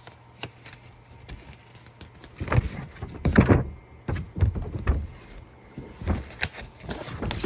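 Handling noise: a run of irregular soft thumps and knocks with some rustling, bunched in clusters from about two seconds in.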